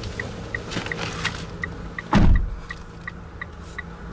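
The 2015 Mitsubishi ASX's driver's door is pulled shut from inside with one heavy thud about two seconds in. Under it, the car's chime ticks steadily, about three times a second.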